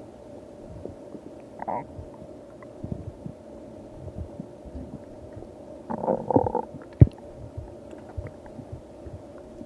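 Stomach growling: irregular low gurgles and small pops, with a short gurgle about two seconds in, a louder burbling gurgle about six seconds in and a sharp pop just after it. A faint steady hum runs underneath.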